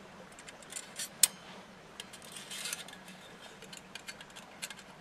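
Light metal clicks and clinks of a Trangia gas burner attachment being moved down inside a folding steel Firebox stove. One sharp click a little over a second in is the loudest.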